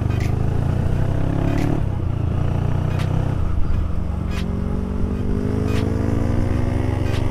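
Motorcycle engine running under way, heard from on the bike. Its note is steady at first, then climbs gradually from about halfway as the bike speeds up. A light click comes about every second and a half.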